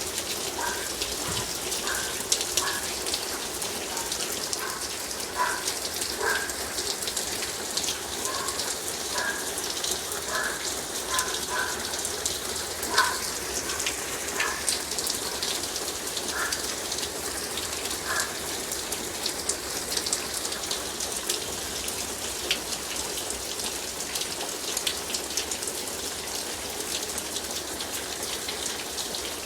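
Nickel- to quarter-sized hail and heavy rain pelting down: a dense, steady patter with many sharp individual ticks of stones striking. Brief high pitched notes are scattered through the first twenty seconds or so.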